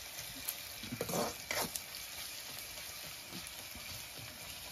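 Onions and meat sizzling in a black iron kadai over a wood fire, stirred with a metal spatula, with a few louder scrapes of the spatula against the pan about a second in.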